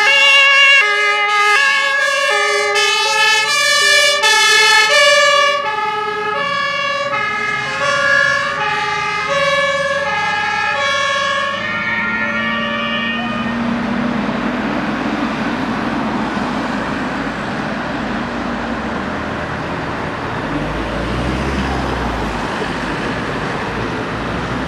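Two-tone German fire-engine sirens (Martinshorn) from more than one vehicle, sounding out of step with each other. They are loudest for the first few seconds, fade, and stop about halfway through. After that only engine and tyre noise of the passing trucks and traffic remains, with a low rumble swelling near the end.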